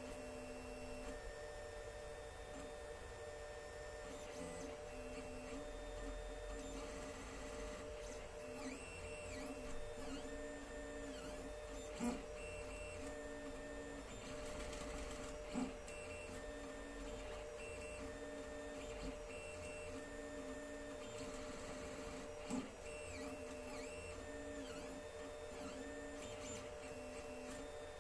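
Alfawise U10 3D printer running a print: its stepper motors whine in short notes that change pitch as the print head moves, over a steady fan hum. A few sharp clicks stand out along the way.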